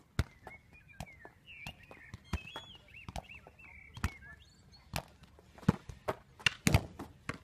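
A football being juggled, each touch of foot, thigh or head a sharp thud about once a second, coming closer together near the end. A bird chirps in the first half.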